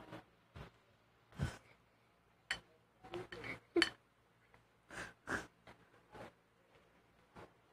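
Scattered soft clicks and taps of a metal fork against a glass plate and through a pile of noodles as food is picked at, with a low thump about a second and a half in and the sharpest taps near the four-second mark.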